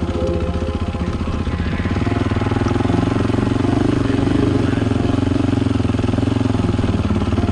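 Dirt bike engine running as the bike rides down a rocky trail, heard from a handlebar-mounted camera; it gets louder from about two seconds in.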